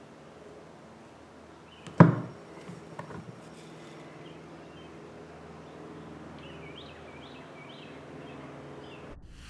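A single shot from a 300 Blackout AR-15 rifle about two seconds in, with a short echo, then a fainter click about a second later.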